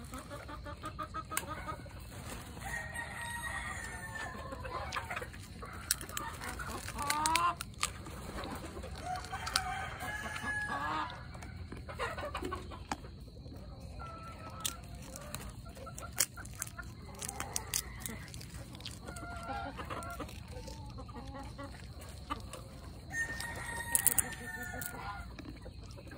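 Chickens clucking and calling over and over, a few calls held longer, with sharp clicks and cracks now and then that are the loudest sounds.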